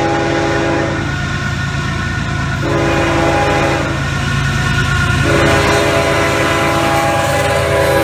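Multi-chime air horn of a Union Pacific GE AC45CCTE diesel locomotive sounding for a grade crossing as the freight train approaches, with the engines' low rumble underneath. The horn comes as a long blast, then two shorter ones after brief gaps, and its pitch drops near the end as the locomotive passes.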